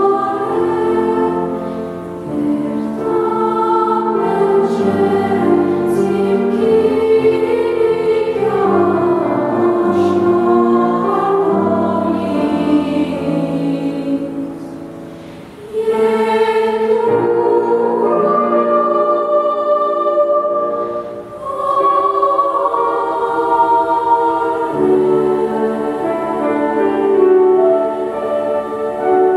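Choir singing in Armenian in several parts with piano accompaniment, in long-held chords. The sound dips briefly about halfway, then a new phrase and slow sustained chords follow.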